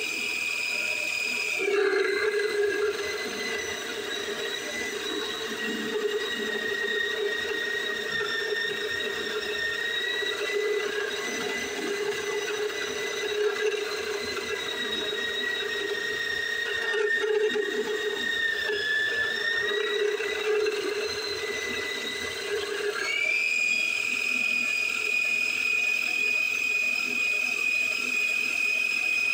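Homemade micro metal lathe's small DC motor, run from a variac at about 12 to 13 volts, whining steadily. About two seconds in its pitch drops and a rougher, lower hum joins as the tool takes a light cut of about five thousandths off the aluminum under load. Near the end the pitch rises back as the cut finishes.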